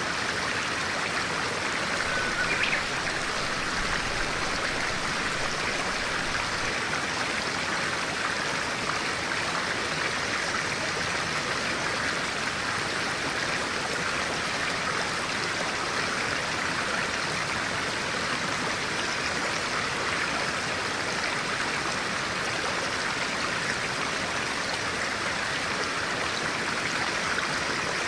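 A stream running steadily, a constant rush of flowing water. A single short bird chirp sounds just over two seconds in.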